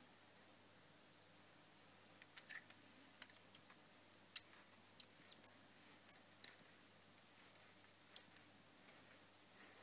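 Light, irregular clicks and taps of small hard parts, about a dozen, starting about two seconds in.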